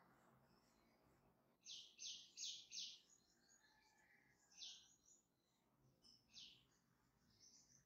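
Faint small-bird chirps: a quick run of four short, high notes about two seconds in, then single chirps every second or two.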